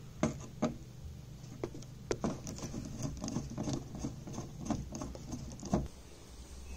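Screwdriver turning out a screw from the plastic back cover of a CRT television: an irregular series of small clicks and scrapes, a few sharper ones standing out.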